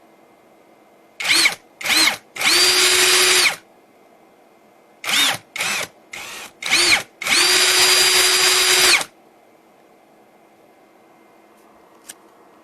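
VOERJIA 21V brushless cordless drill run with no load in trigger pulls, its motor whine rising as it spins up. First come two short blips and a run of about a second. Then come four short blips and a longer run of nearly two seconds.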